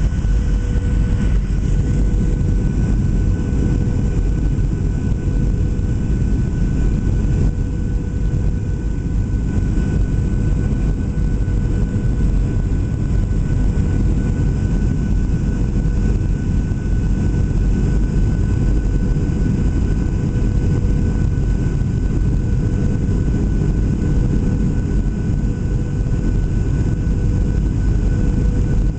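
Cabin noise inside a Boeing 737-700 in flight: a steady low rumble of airflow and its CFM56 turbofan engines, with a few steady tones running through it.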